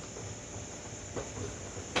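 Steady high-pitched chorus of crickets, with a light knock a little over a second in and a sharper click at the end.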